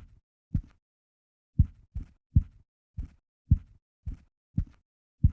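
Typewriter keys being struck one at a time: about ten dull thuds at an uneven typing pace, roughly two a second.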